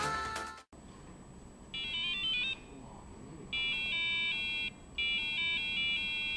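Microcontroller-driven beeper (PIC18F452) playing a simple electronic tune in three short phrases of stepped, ringtone-like notes, the last two phrases longer than the first. A background song fades out just before the first phrase.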